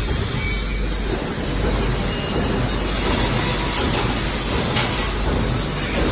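Steady loud machinery noise with a low hum, and a few faint clicks.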